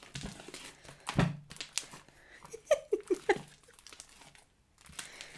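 Slime being squeezed, stretched and pulled apart by hand, making irregular sticky clicks and squelches, with one louder wet smack about a second in.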